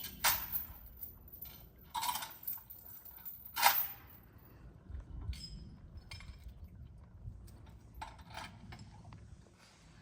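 Sharp metallic clinks and knocks, four or five of them with gaps between, each ringing briefly; the loudest comes a little under four seconds in.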